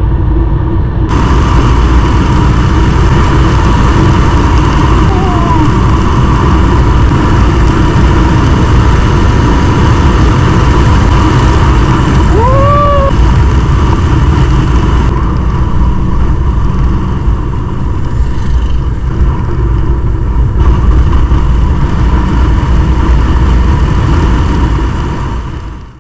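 Yamaha FZ25 motorcycle running at road speed, its single-cylinder engine under a heavy, steady rush of wind on the helmet or bike-mounted camera's microphone. A brief rising tone comes about halfway through.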